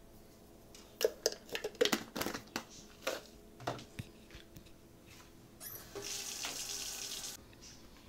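Sharp clicks and taps of a spoon against a metal pot and container as salt is added, then a brief hiss of running water from a tap for over a second, about six seconds in.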